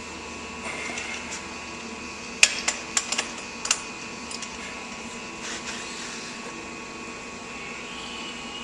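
A few sharp metallic clanks, bunched about two and a half to four seconds in, from a wrench with a cheater pipe being worked against the rusted-on head of a frost-proof yard hydrant, over a steady mechanical hum.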